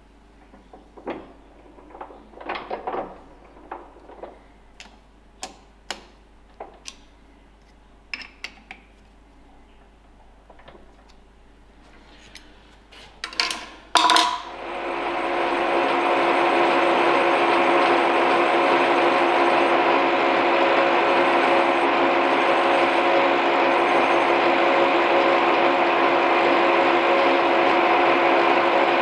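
Metal clicks and taps of the Wohlhaupter boring head being adjusted by hand for about half the time. About halfway through, a clatter, then the Reiden milling machine's spindle starts, rises over a second or two and runs steadily with a whine made of several steady tones, the boring head turning down in the bore.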